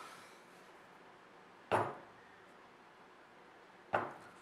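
Two sharp knocks, about two seconds apart, as a sharpened wooden stick is driven into the eye of a husked coconut to open it.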